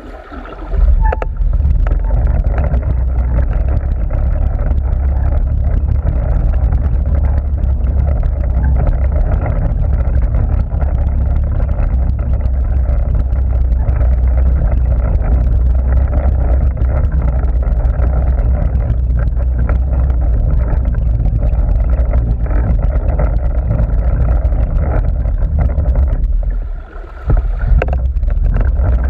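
Muffled underwater noise from a camera submerged in a swimming pool: a steady low rumble of moving water against the housing. It drops away briefly about two seconds before the end.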